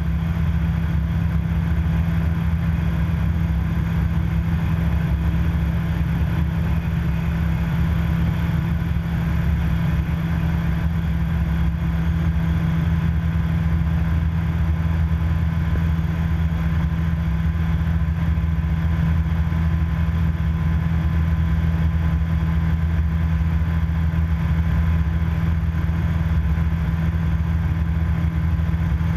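Viper SD4 light aircraft's piston engine and propeller running at a steady, unchanging speed, heard as a constant low drone with air hiss inside the cockpit.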